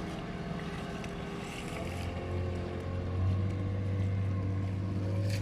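Motorboat engine running steadily, a low hum that grows stronger about two seconds in.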